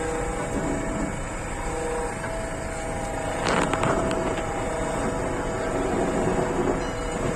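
JCB 3DX Plus backhoe loader's diesel engine running steadily, with a short burst of scraping clatter about halfway through.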